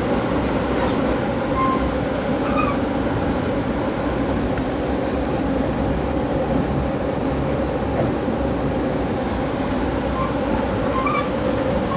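Steady rumble of a passenger train running at speed, wheels on rails, heard from inside the car.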